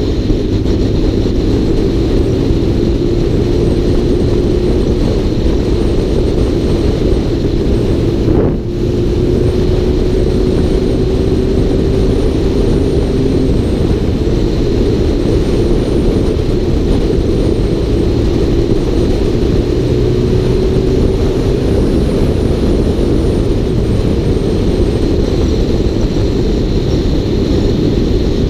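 A motor vehicle driving, its engine running under dense low road and drive noise, with the engine pitch creeping slowly upward. The sound drops briefly about eight and a half seconds in.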